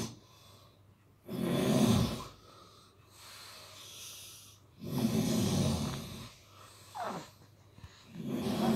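Someone snoring: a low rasping breath comes in every three and a half seconds or so, in three bursts. A brief high squeak falls in pitch about seven seconds in.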